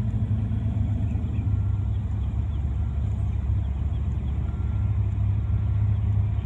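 Steady low rumble of an approaching diesel freight train's locomotives.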